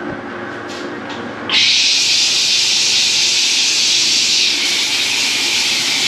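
Stainless wall-panel shower turned on: water comes on with a sudden rush about a second and a half in, then sprays steadily with a loud hiss.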